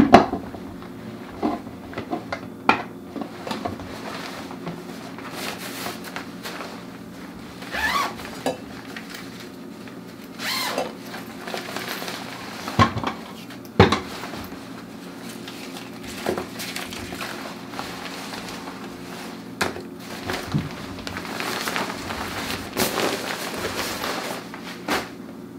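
Hands working inside a black fabric film changing bag, closing up the developing tank: soft rustling of the bag with scattered plastic clicks and knocks, the sharpest about 13 and 14 seconds in.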